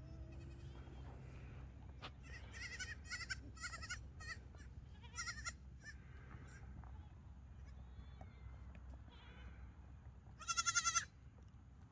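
Goats bleating: a string of short, quavering calls in the first half, then one loud, wavering bleat near the end, the loudest of them.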